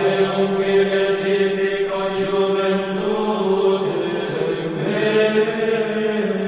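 Mozarabic chant sung by voices in a single unaccompanied melodic line, long held notes stepping slowly up and down in pitch.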